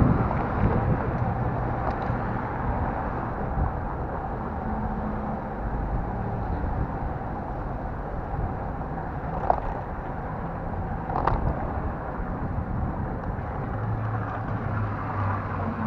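City road traffic heard while cycling: a steady rumble of passing cars with a low engine hum, and two brief sharp chirps about two seconds apart past the middle.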